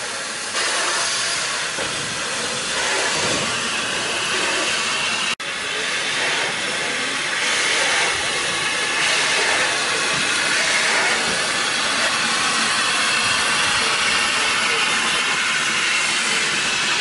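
Narrow-gauge steam locomotive hissing steadily as steam escapes. The hiss breaks off for an instant about five seconds in, then carries on a little louder.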